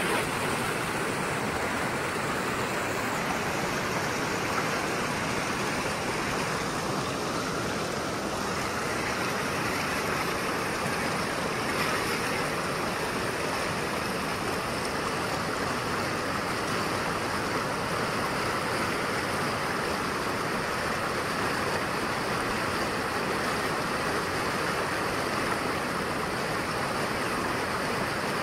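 Fast-flowing mountain river rushing over boulders and through shallow rapids, a steady, unbroken wash of water.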